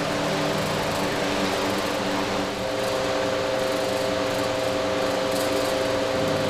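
A steady mechanical hum: an even rushing noise with several held low tones under it.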